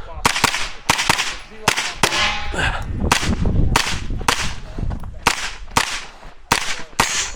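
Rapid gunfire from a 9mm pistol-caliber carbine, likely a Sig Sauer MPX: strings of sharp shots two or three a second, with a brief break in firing about two seconds in.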